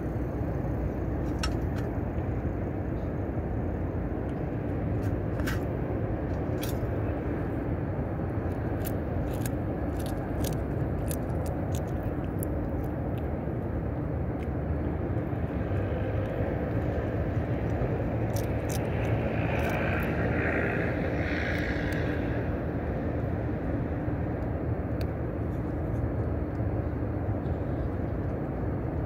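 Steady low rumble of distant city traffic, with scattered sharp little clicks of stray cats chewing fish at a metal feeding tray.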